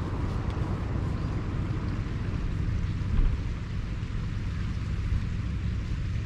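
Steady low rumble, with one brief louder bump about three seconds in.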